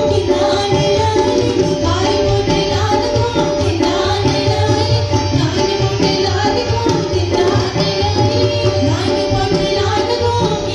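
Indian folk music: singing over a hand-drum beat, with one note held steadily underneath.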